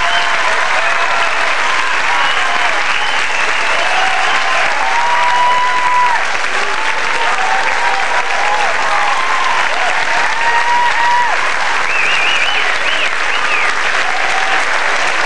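A large audience applauding steadily, with cheering and shouting voices rising above the clapping.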